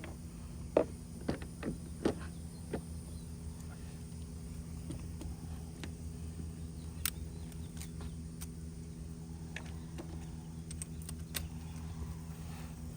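Scattered light clicks and taps of a plastic brake-light housing and its fittings being handled and fitted, thickest in the first few seconds. Under them runs a steady low hum.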